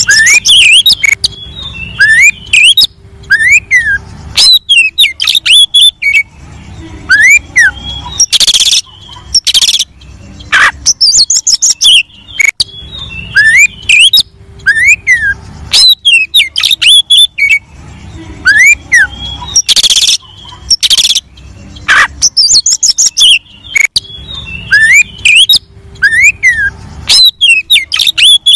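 Male Oriental magpie-robin (kacer) singing loudly and continuously. Clear whistled notes that rise and fall are mixed with harsh, scratchy loud phrases. The same song sequence comes round about every eleven seconds, as a looped lure recording used to provoke other kacer into singing.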